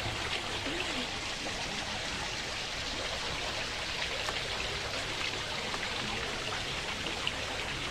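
Steady, even rushing hiss of a sleep-sound ambience, wind-like or rain-like, with no breaks or changes.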